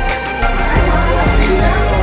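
Background music.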